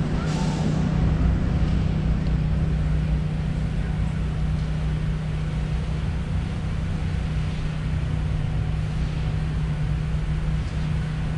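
Steady low mechanical hum over street traffic noise.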